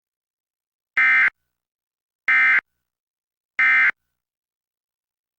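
Emergency Alert System end-of-message tones: three short bursts of SAME digital data, the "NNNN" end-of-message code, each about a third of a second and a little over a second apart, closing the Required Monthly Test.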